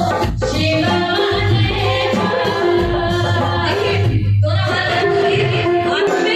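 Hindu devotional bhajan sung live, a sung voice over steady low instrumental accompaniment.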